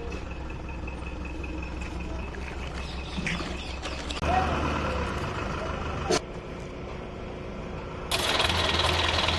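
Engine noise in several segments that cut abruptly into one another, with a sharp click about six seconds in and a louder, harsher engine sound from about eight seconds in.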